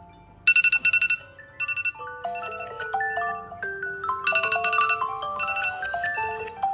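Smartphone alarm or timer tone: a melodic ringtone of bright, marimba-like notes stepping up and down, with quick bursts of rapidly repeated high notes about half a second in and again about four seconds in.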